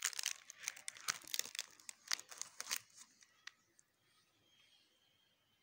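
Crinkling and crackling of a photo album's plastic sleeves as a page is turned and handled, a busy run of sharp crackles for about three seconds that then stops.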